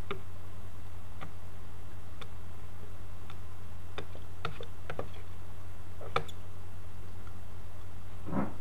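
Scattered light plastic clicks and taps as a toy roller stamper is rolled across an ink pad to ink it, the loudest click about six seconds in, over a steady low electrical hum.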